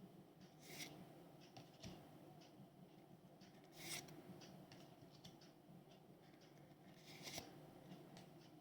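Faint handling of trading cards and foil pack wrappers: soft rustles and small clicks, with three brief louder swishes about a second in, near the middle and near the end.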